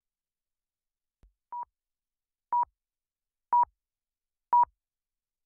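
Countdown beeps: a short, single-pitched electronic beep once a second, four times, the first one quieter.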